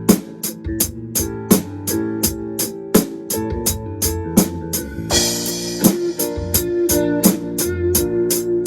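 Drum kit played along to the song's backing track of keyboard and guitar: steady hi-hat strokes about four a second with snare and kick accents, and a crash cymbal about five seconds in.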